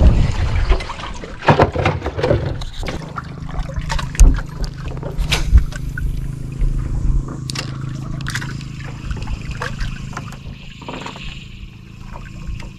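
Water sloshing and trickling around a small fishing boat, with scattered sharp knocks and a steady low hum that comes in about three seconds in.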